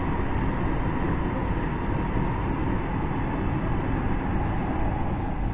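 Electric commuter train running, heard from inside the passenger carriage: a steady low rumble of wheels on rails and running noise.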